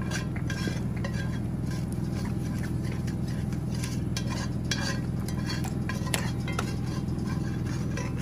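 Whisk scraping and clinking in a cast iron skillet, stirring a butter-and-flour roux, over a steady low hum.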